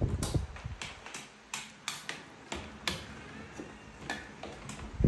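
Macaque chewing a mouthful of soft fruit: irregular sharp clicks and smacks from its mouth, roughly one or two a second.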